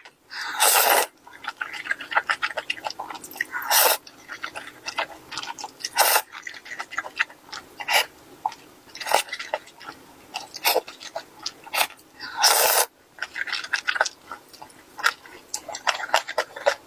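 Crunchy bites and chewing of fried chicken. Several loud crisp crunches come a few seconds apart, with quieter chewing crackles and clicks in between.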